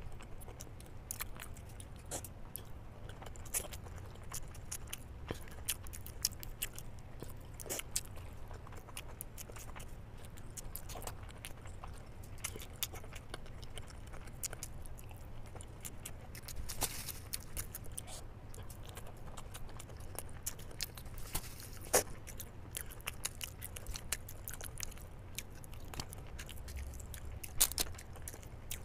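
Close-up chewing and wet mouth clicks of someone eating masala-coated boiled eggs, with irregular sharp smacks scattered throughout and a few louder ones near the end. A steady low hum lies underneath.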